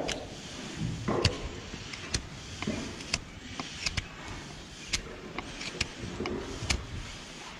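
Hoof knife paring horn from a laminitic hoof: a string of short, irregular scraping cuts and clicks, roughly two a second.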